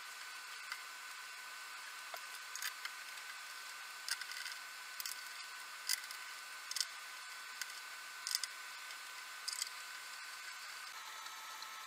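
Irregular light clicks and taps from small parts and hand tools being handled on a workbench, about a dozen, most of them in the middle, over a steady faint high hiss.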